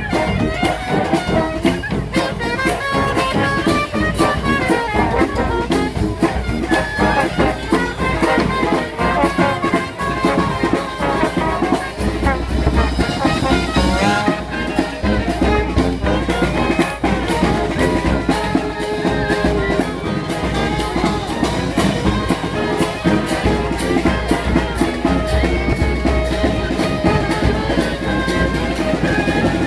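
Street brass band playing a lively tune: several horns carry moving melody lines over a steady drum beat.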